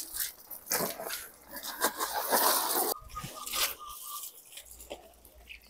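Tent fabric rustling and crinkling as it is pulled down off a line and bunched up by hand, loudest in the first three seconds and quieter after.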